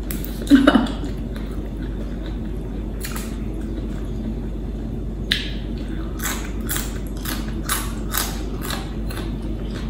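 Close-up chewing of crunchy raw vegetables: a brief murmur near the start, then about halfway through a run of crisp crunches, about three a second. A steady low hum runs underneath.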